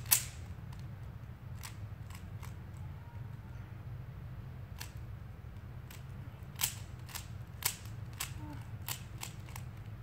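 Rubik's cube being turned by hand during a solve, its plastic layers clicking in sharp, irregular clacks, a dozen or so spread through the stretch.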